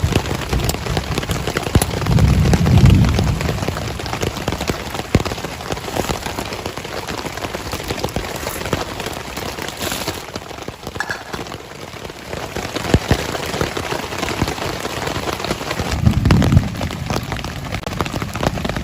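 Rain falling on a tent, an even hiss with many sharp drop hits. There are two short low rumbles, one about two seconds in and one near the end.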